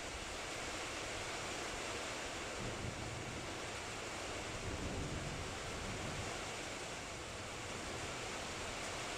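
Heavy rain pouring down in a dense, steady hiss. A faint low rumble swells briefly in the middle.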